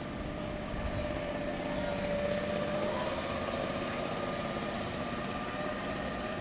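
A motor vehicle's engine running steadily, a low continuous hum with a faint held tone over it.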